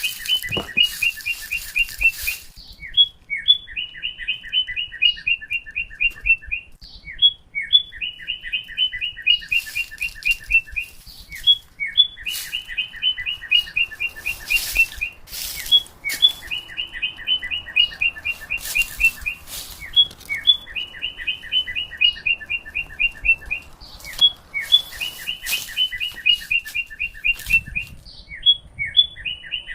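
A songbird repeating the same quick run of short, bright notes about every four seconds, with a few single calls between phrases. Short bursts of hiss break in now and then.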